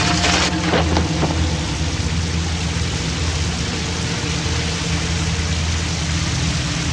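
Shower running: water spraying steadily from the shower head, with a low steady hum beneath it.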